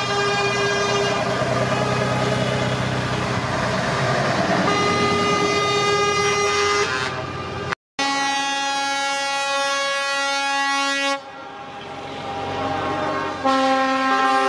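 Truck air horns sounding in long held blasts, several notes together, over the running of truck engines. The sound cuts out completely for a moment about eight seconds in, and is quieter for a couple of seconds before the horns come back near the end.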